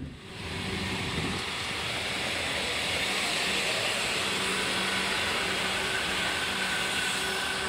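Steady hiss of a stopped passenger train's air and ventilation systems along an underground station platform, with a few faint steady hum tones beneath it.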